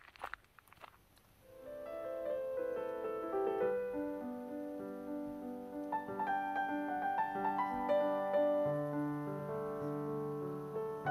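A few footsteps crunch on a gravel trail, then background piano music fades in about a second and a half in and plays on, a gentle melody over held low notes.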